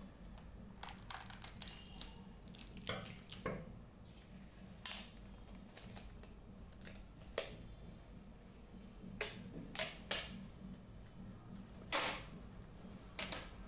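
Scissors snipping through clear adhesive tape, then the crackle of a tape roll being handled: about a dozen sharp snips and clicks, spaced irregularly.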